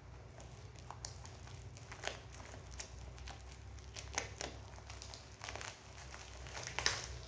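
Ring light packaging being handled and opened: irregular crinkling and rustling with scattered small knocks, the loudest near the end.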